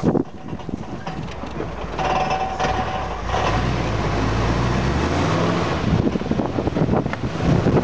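Jeep CJ7's engine as the Jeep rolls to a halt at the road's edge, then revs and pulls away, its pitch rising from about four seconds in. A brief high squeal comes about two seconds in, and wind noise on the microphone builds as the Jeep picks up speed near the end.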